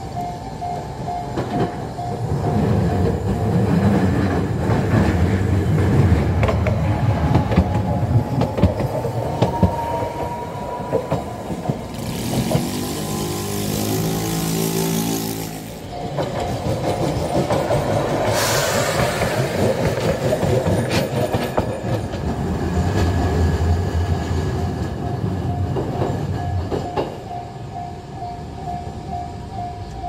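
A level-crossing warning bell clangs in a fast repeating tone, then is drowned by trains passing close by on the rails: a heavy rumble with wheel clatter, then a Kagoshima City tram's motor whine changing pitch in steps. The bell is heard again near the end.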